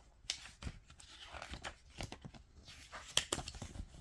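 Packaging being handled during an unboxing: faint rustling and crinkling with scattered small clicks and knocks, the loudest a little after three seconds in.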